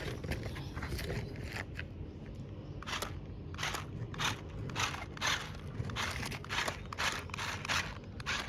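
Repeated crunching strokes, about one or two a second, starting a few seconds in over a low steady rumble.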